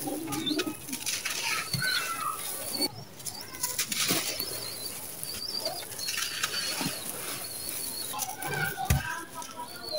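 Chunks of dry sand-cement crushed and rubbed between bare hands, an irregular gritty crunching with grains and powder sifting down. Birds chirp faintly in the background.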